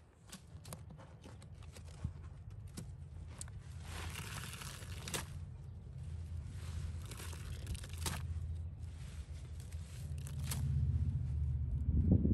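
A wet sponge squeezed and worked in a bucket of thick, soapy pine-cleaner solution: squelching, crackling suds with many small clicks, growing louder and fuller near the end.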